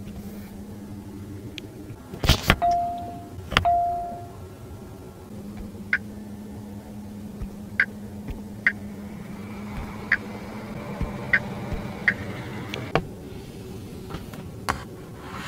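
Fingertip taps on a car's centre touchscreen, answered by the car's short electronic interface beeps: two louder clicks each followed by a brief steady tone, then a run of lighter taps with short high blips about every second, over a steady low hum.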